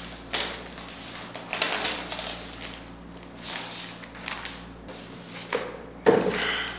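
MacBook unboxing handling noise: rustling and tapping of the cardboard box and the thin protective sheet as the laptop is lifted out and unwrapped, in several short, irregular bursts.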